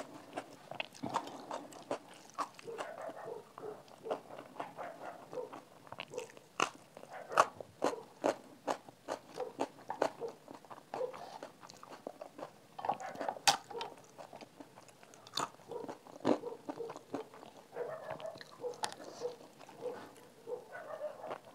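Close-miked eating sounds: steady chewing of rice and dal with wet mouth clicks and smacks, broken by sharp crunches of crisp papad.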